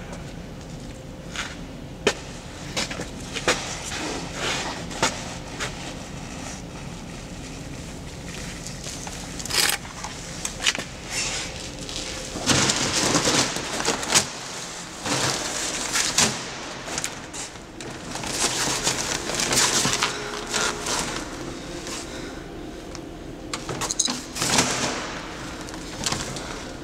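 Irregular knocks, thuds and scuffing as sacks are shifted and stacked on a basement floor, with longer bursts of rustling and handling noise about halfway through and again near the end, over a low steady hum.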